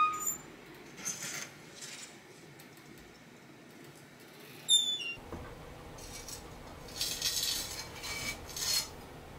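A long metal firing fork clinking and scraping as a freshly fired cloisonné bowl on its wire mesh is drawn out of a small electric enamelling kiln and set down on a slab. A sharp metallic clink at the start and another just before the middle, short scrapes between, and a longer run of scraping near the end.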